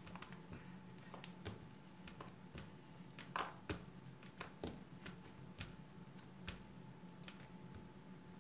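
Sticky clear glue-and-borax slime worked by hand, giving faint scattered squishy clicks and pops, the loudest about three and a half seconds in.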